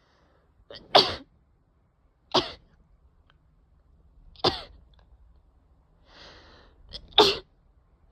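A person in a sneezing fit: four loud sneezes in a row, about two seconds apart, with an audible breath drawn in before the fourth.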